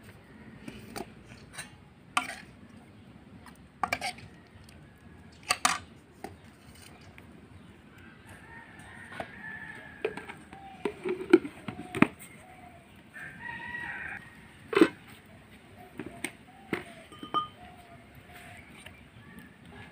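Chickens clucking and a rooster crowing, with several sharp clinks and knocks, the loudest sounds, from steel plates and utensils being handled.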